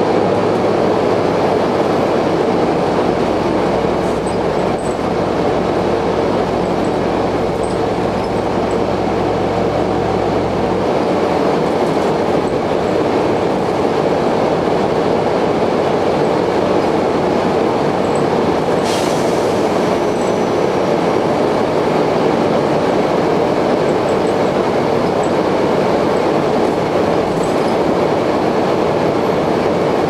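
Interior noise of an Optare Solo midibus: a loud, steady whining drone of the kind enthusiasts call a very loud 'hoover', over engine and running noise. A deeper hum underneath drops away about a third of the way through, and there is a brief hiss a little past halfway.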